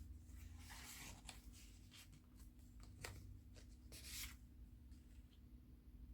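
Faint rustling of paper pages and card being handled and turned in a handmade junk journal, with a small click about three seconds in, over a low steady hum.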